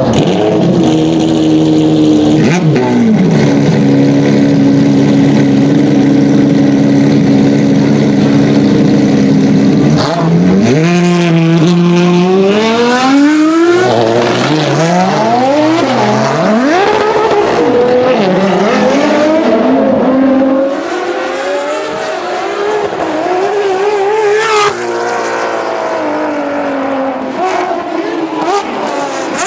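Ferrari XX-programme race cars' V12 engines. After a quick blip, revs are held steady for several seconds, then the cars accelerate away with the pitch rising through several gear changes. After that the engine note rises and falls again and again as the FXX-K is driven on the track.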